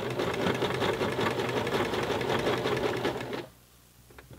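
Baby Lock BL9 mechanical home sewing machine stitching a denim jeans hem at steady speed: the motor whirs under rapid, even needle strokes, then stops about three and a half seconds in, followed by a faint click or two.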